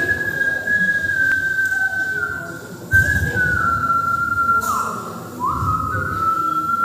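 A man whistling a slow tune into a microphone in long held notes, with small steps in pitch. There is a brief break with a breath about three seconds in, and a short dip to a lower note near five seconds.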